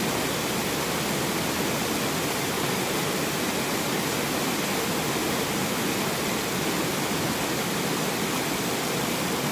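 River rapids: white water rushing over rocks in a steady, unbroken wash.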